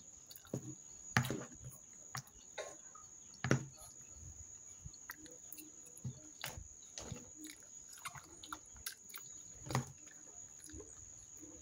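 Close-up eating: chewing and gnawing meat off a bone, with scattered small clicks and soft knocks of a fork in a plastic bowl. A thin, steady, high insect tone runs behind it.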